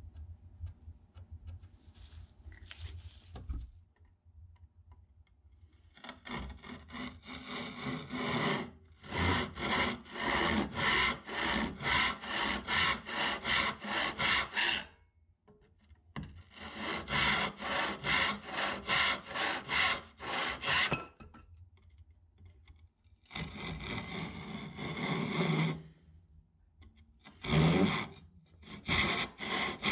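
Hand saw cutting across a wooden board with quick, even back-and-forth strokes. It goes in several runs broken by short pauses, starting a few seconds in.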